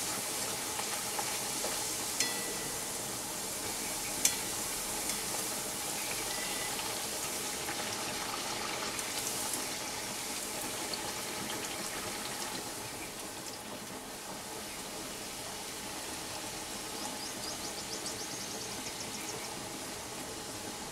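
Luchi (puffed flour flatbread) deep-frying in hot oil in a steel kadai, a steady sizzle that eases a little about halfway through. A slotted metal spatula clicks sharply against the pan about two seconds in and again about four seconds in.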